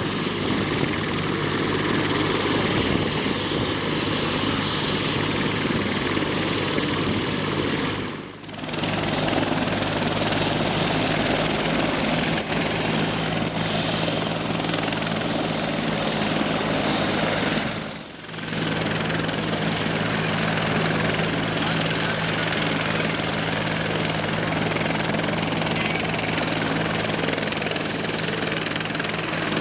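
Bell 412 twin-turbine helicopter running on the ground with its main rotor turning: a steady low rotor and engine drone under a thin, steady high turbine whine. The sound drops briefly twice, about eight and eighteen seconds in.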